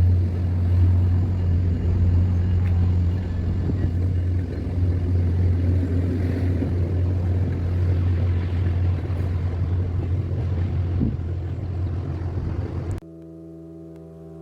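Steady low rumble of a running vehicle. About a second and a half before the end it cuts off suddenly and quiet music with held notes begins.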